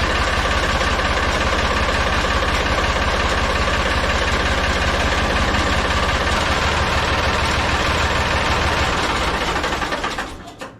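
Tractor backhoe engine idling with an even, steady pulse, then dying away near the end.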